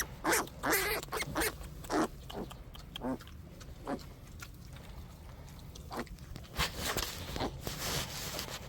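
Young farm animals calling in a run of short, high, wavering cries, thick in the first few seconds and again near the end.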